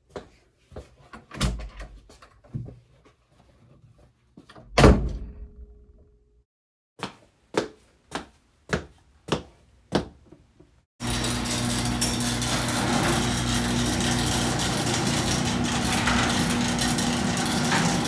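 Footsteps in slippers on a wooden floor and a door shutting with a loud thud about five seconds in, followed by more evenly paced steps; from about eleven seconds on, a loud steady rushing noise with a low hum.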